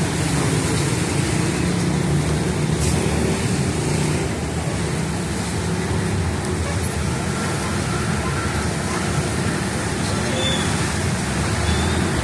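Steady road-traffic noise: vehicles running past on a rain-soaked road, with the hiss of rain underneath.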